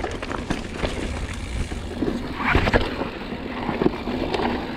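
Mountain bike rolling down a loose, rocky dirt trail: tyres crunching over gravel and the bike rattling with many small knocks, with a louder rough clatter about two and a half seconds in.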